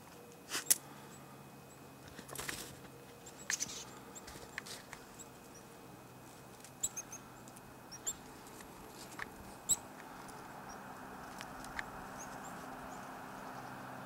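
Small songbirds at winter feeders giving short, high, scattered chip calls, faint against a soft background hiss. A few sharp louder knocks and crunches come in between, the loudest about a second in and again near the end.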